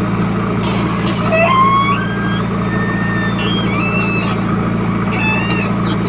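JCB 3DX backhoe loader's diesel engine running steadily while it works, with high squealing tones coming and going from about one second in until near the end.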